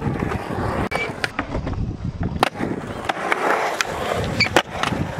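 Skateboard wheels rolling and carving on a concrete bowl, with several sharp clacks of boards striking the concrete.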